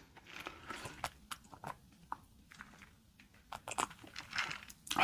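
Close-up eating sounds of crunchy fast food: scattered crisp bites and crackly chewing in two short spells, with quiet gaps between.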